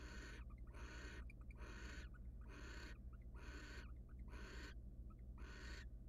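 Barn owl giving its rasping, hiss-like 'snoring' call over and over, each call about half a second long and coming about once a second. A steady low electrical hum runs underneath.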